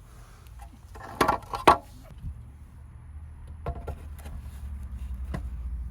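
Plastic DE filter grid elements knocking and clicking against the manifold as they are fitted into place. There are a few sharp knocks, the loudest two about a second and a half in, over a low rumble that grows toward the end.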